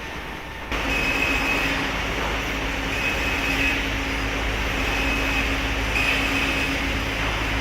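Sawmill machinery running: a steady mechanical noise with a constant low hum and a high whine that comes back about every two seconds. The noise jumps up suddenly just under a second in.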